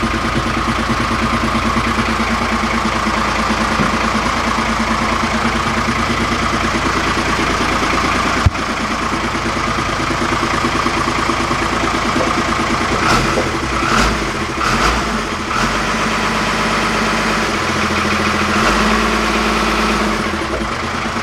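1959 Bedford army truck's engine running steadily, heard from inside the cab. A single sharp click comes about eight seconds in, and a few brief knocks come a little past the halfway point.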